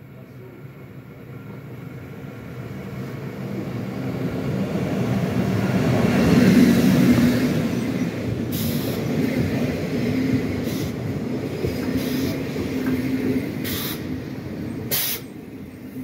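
Electric push-pull regional train pulling into a station: the coaches' wheels rumble louder as it approaches and pass close by from about six seconds in, with the ÖBB class 1144 locomotive at the rear. Several short sharp air hisses from the brakes come in the second half as it slows.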